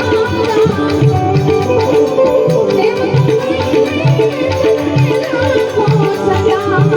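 Loud Indian folk-style music played over a DJ sound system, with a steady drum beat and a wavering melody line.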